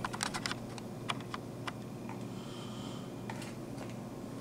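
Handling noise from a camera being moved in closer: a quick run of light clicks and taps in the first second and a half, then a few scattered single clicks over a low steady hum.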